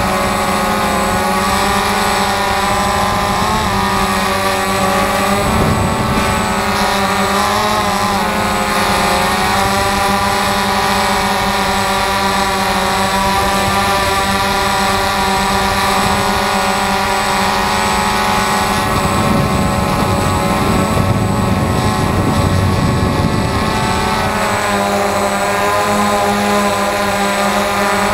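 DJI Phantom FC40 quadcopter's motors and propellers whining, heard loud and close from the camera on the drone itself. The stack of tones drifts up and down in pitch as the motors change speed, and a rougher low rumble joins for a few seconds past the middle.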